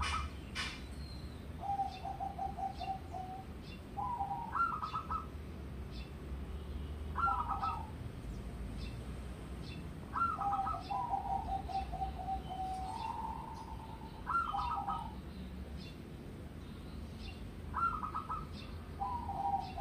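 Zebra dove (perkutut) singing: repeated cooing phrases about every three seconds, each a couple of higher notes followed by a run of quick, evenly spaced lower coos.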